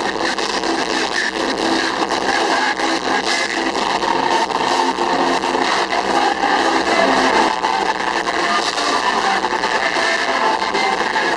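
Loud praise music played over a public-address system, distorted and blended with the noise of a large crowd.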